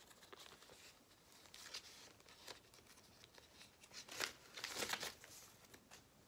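Faint rustling and crinkling of a plastic protective sleeve as a 7-inch vinyl single is handled and slid about, in short irregular scrapes that are loudest around four to five seconds in.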